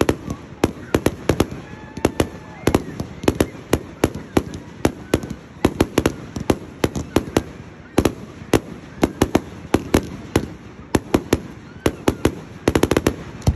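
Aerial fireworks display: a dense run of sharp bangs from shells bursting overhead, several a second, with a tight cluster of them near the end.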